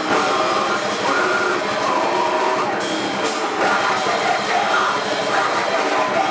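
Grindcore band playing live: distorted electric guitar and drum kit, with harsh vocals screamed into the microphone.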